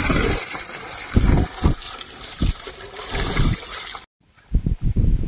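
Water being poured into a pan of frying crab curry masala, trickling and splashing, with a few dull low knocks.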